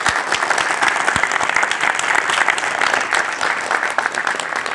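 A large audience applauding, a dense steady clapping that eases slightly near the end.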